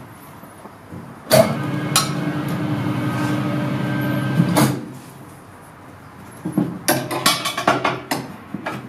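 Tyre changer turntable motor running for about three seconds, turning the steel-rimmed wheel while the tyre bead is pulled off over the mounting head; it starts with a clunk about a second in. Near the end, a run of metal clanks and knocks from the tyre lever against the rim and machine.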